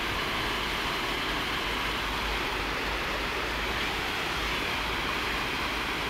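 Steady rushing noise of flowing river water, even throughout with no distinct splashes or other events.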